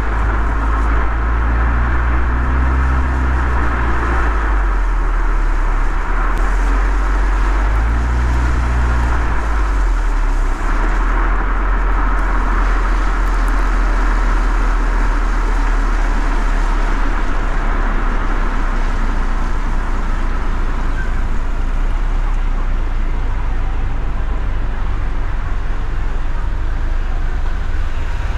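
Car driving on wet city streets: a steady low road rumble with a hiss of tyres and surrounding traffic. There are two brief swells of engine hum in the first ten seconds.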